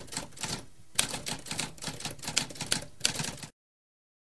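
Typewriter typing: a rapid run of keystrokes with a brief pause about half a second in, cutting off suddenly about three and a half seconds in.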